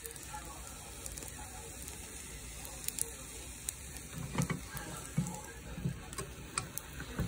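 Food sizzling on a hot pan or grill, a steady hiss with scattered sharp crackles and a few soft low thuds.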